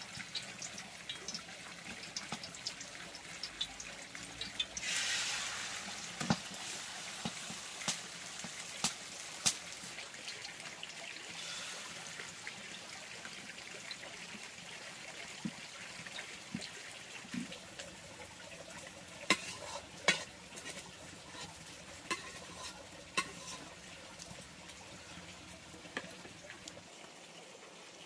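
Beaten egg with chopped greens frying in oil in a wok, with a steady sizzle that surges about five seconds in. Scattered sharp taps of chopsticks against the bowl and pan.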